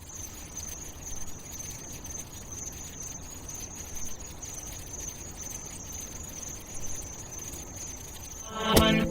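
Steady ambient background with an even, high-pitched chirring tone over a low rumble and hiss. About a second before the end, dance-pop music with a bright plucked riff comes in.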